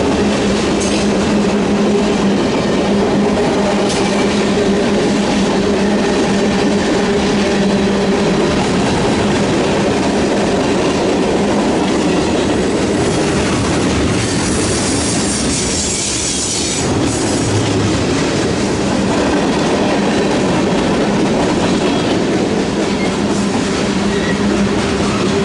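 A loaded mixed freight train's cars rolling past at close range: boxcars, a centerbeam flatcar, gondolas and tank cars, with steady wheel-on-rail noise and a sustained low hum. A brighter high-pitched hiss rises for a couple of seconds about midway.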